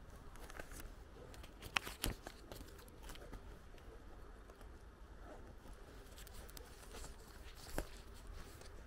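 Faint footsteps of someone walking on a lane, with a low steady rumble underneath. A couple of sharp clicks come about two seconds in and another near the end.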